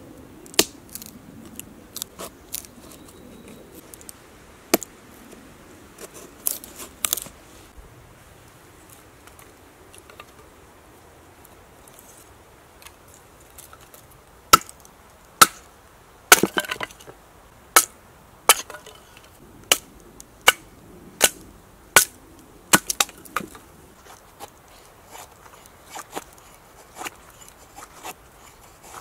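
Survival Lilly APO-1 fixed-blade knife cutting and shaving a stick of wood on a tree stump: irregular sharp cracks and knocks as the blade bites into and splits the wood, coming thickest in the middle of the stretch.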